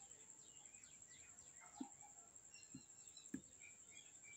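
Near silence: faint birds chirping, a steady high-pitched whine, and three soft knocks about two and three seconds in as the ladle stirs the mixture in the aluminium pot.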